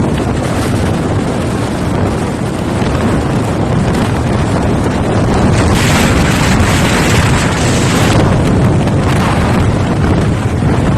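Wind rushing over the microphone of a riding motorcycle, with engine and road rumble underneath; it gets louder and hissier from about halfway through.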